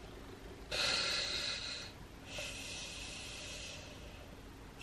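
A woman breathing heavily: two long, noisy breaths, the first about a second in and the second just after the middle.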